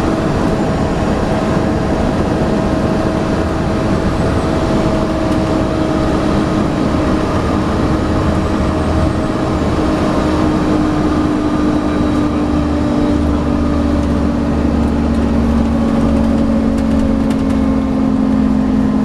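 Volvo B7TL bus's diesel engine running with its steady, vacuum-cleaner-like 'hoover' whine. About halfway through the whine drops a little in pitch, and a deeper hum builds up.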